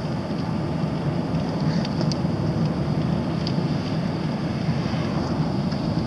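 Steady road and engine noise inside a moving car's cabin, with tyres running on a wet road and a few light ticks.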